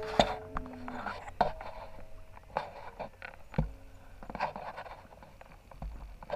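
Bicycle rolling over a rough gravel track, its frame and parts rattling and knocking irregularly, with a few brief squeaks.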